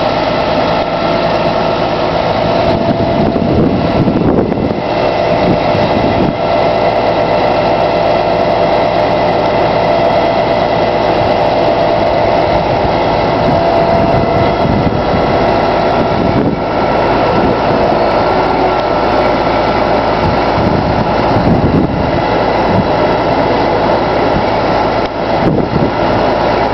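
Diesel engine of a truck-mounted hydraulic knuckle-boom crane running steadily while the crane hoists a crawler dozer, with a steady whine held over the engine noise.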